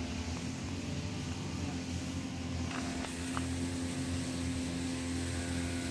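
A steady mechanical hum holding one pitch, with two faint ticks about three seconds in.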